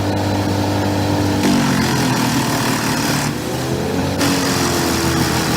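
Engines of heavy machinery running, with the pitch shifting and gliding up and down, broken by sudden changes about a second and a half and three seconds in.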